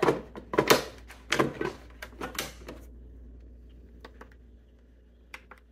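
Hard plastic clunks and clicks as a Ninja Creami's outer bowl, holding the frozen pint, is fitted and twisted to lock onto the machine. Then come two light clicks as its control buttons are pressed.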